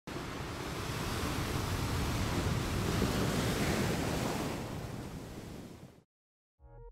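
Logo intro sound effect: a long swell of rushing noise that builds for about three and a half seconds, then fades out and stops about six seconds in. Electronic music starts just at the very end.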